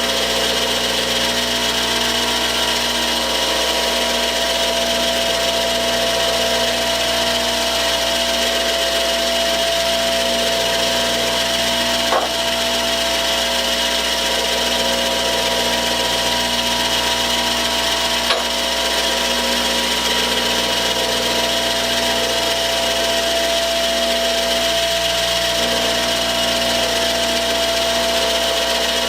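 Powered grindstone running steadily while the end of a hand-held stainless steel screw is ground down against the stone. Two brief clicks come about twelve and eighteen seconds in.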